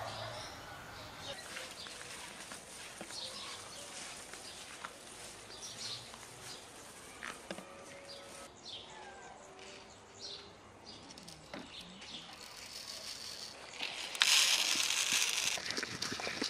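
Small birds chirping in the background, then near the end a loud rush of grain poured from a bucket into a feed trough, followed by light clicking as a goat eats from it.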